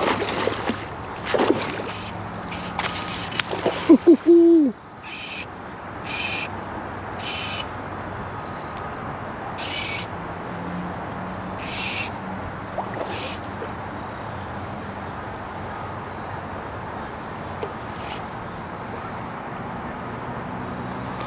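A hooked Atlantic salmon splashing and thrashing at the surface in the first few seconds. About four seconds in comes a brief loud pitched sound that rises and falls. Then six short high rasping bursts, a second or two apart, over steady river ambience.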